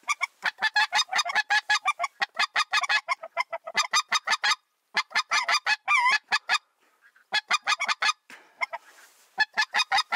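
Mouth-blown goose call worked in rapid runs of short, sharp honks, several a second, imitating bean geese to lure a goose in. The honking comes in loud bursts broken by a few brief pauses.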